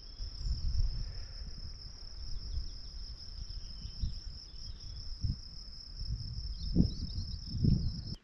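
Crickets trilling in a steady, high, fast-pulsing chorus over a low, gusty wind rumble.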